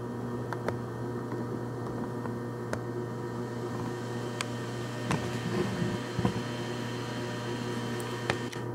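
Bridgeport milling machine running with no cut being made, a steady motor hum with a few faint ticks.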